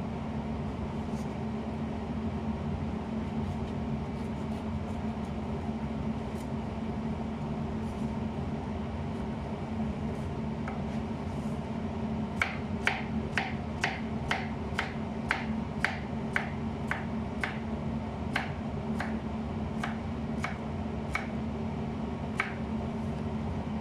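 Knife chopping a zucchini on a cutting board: a run of regular sharp taps, about two a second, through the second half, over a steady hum.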